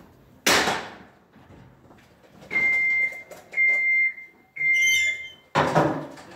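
A loud metallic clang of steel framing. Then a cordless screw gun runs three times in short bursts, each a steady high-pitched whine, driving screws into metal studs. Another loud clang of metal comes near the end.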